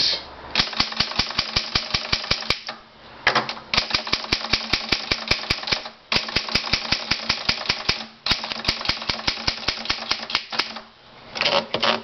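Scheidegger Princess-Matic manual typewriter being typed on fast: quick runs of key and typebar strikes, about ten a second, broken by three short pauses, with a louder clatter near the end.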